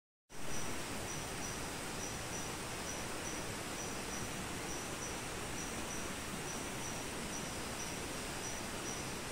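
Rainforest insects calling, a thin high note pulsing about twice a second, over a steady rushing hiss. The sound cuts in abruptly just after the start.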